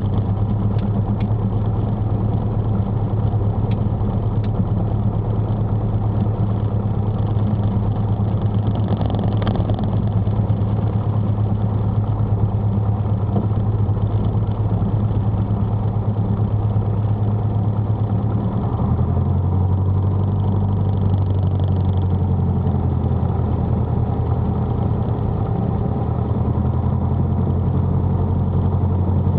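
Single-engine light aircraft's piston engine and propeller running at low power as the plane taxis, heard from inside the cockpit. The steady low drone shifts slightly in pitch about nineteen seconds in, as the power setting changes a little.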